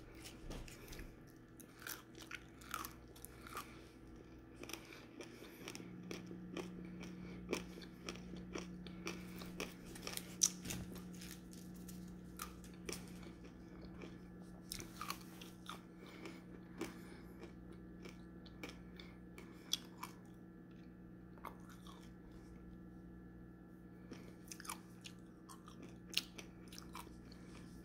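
A person chewing candy with the mouth closed, close to the microphone: irregular crunches and mouth clicks.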